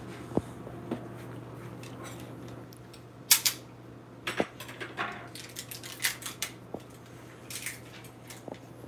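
Kitchen handling noises as a hot sauce bottle and utensils are moved about: scattered light clicks and taps and several short hissing scrapes, over a steady low hum.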